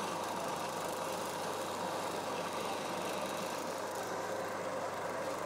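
Electric blender motor running steadily, blending kimchi seasoning paste.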